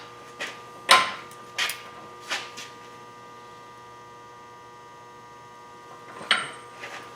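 A few sharp metal-on-metal knocks of tools working the pinion seal installer, irregular and bunched in the first few seconds, the loudest about a second in, with two more near the end, over a steady low hum.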